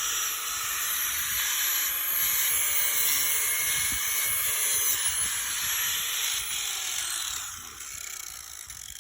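Grinder wheel grinding the edge of a steel lawnmower blade, a steady harsh hiss. Near the end the grinding stops and the wheel winds down.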